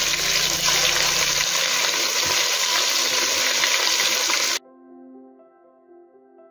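Sliced onions sizzling loudly as they are tipped into hot oil and ghee with whole spices in a frying pan. The sizzle cuts off abruptly about four and a half seconds in, leaving soft instrumental music.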